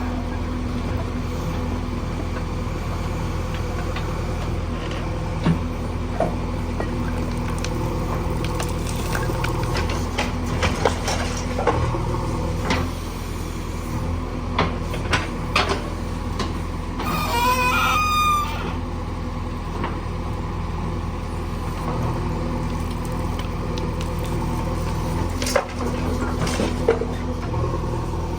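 JCB backhoe loader's diesel engine running steadily while it loads mud, with scattered knocks and clatter from the work. A short wavering squeal comes about two-thirds of the way through.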